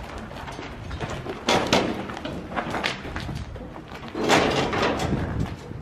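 Several bangs and clattering knocks, the loudest about a second and a half in and again just past four seconds.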